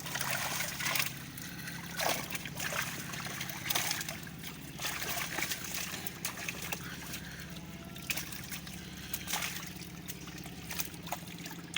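River water splashing and sloshing in irregular bursts as it is stirred up, over a steady low hum.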